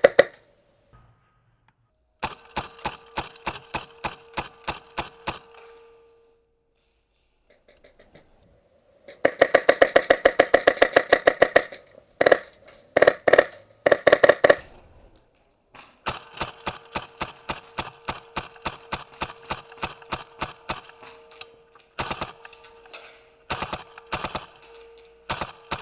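Airsoft guns firing in repeated strings of rapid, evenly spaced shots, with short pauses between strings. The loudest and fastest burst comes about nine seconds in. A steady hum runs under the slower strings.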